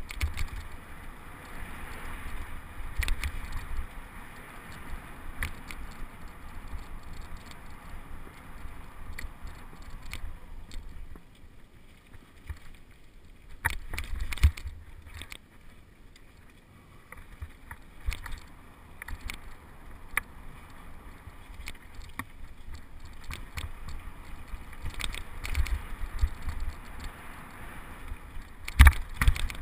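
Mountain bike ridden over a dirt singletrack, picked up by a helmet-mounted camera: a constant low rumble of tyres and jostling, broken by frequent sharp clacks and rattles as the bike jolts over roots and bumps. The loudest knock comes near the end.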